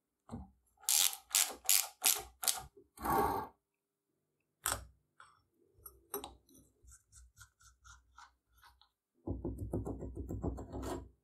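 Hand tools working the nuts of an antique cast-iron hand-cranked grinder during disassembly. A run of about six sharp metallic knocks comes first, then a few light clinks, then a fast rattling clicking near the end.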